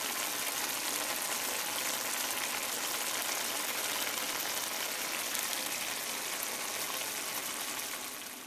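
Curry conch sauce bubbling at a simmer in a stainless steel skillet: a steady bubbling sizzle that fades away near the end.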